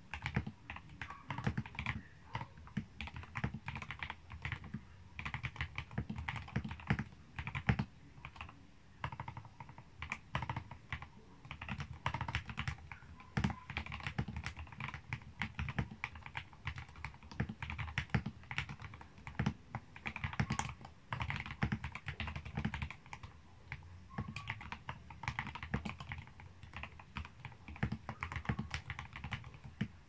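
Steady fast typing on a modded Royal Kludge RK68 mechanical keyboard: lubed RK Red linear switches under PBT keycaps, with foam in the case and band-aid-modded stabilisers, giving a dense run of key clicks with a low, damped body to each stroke.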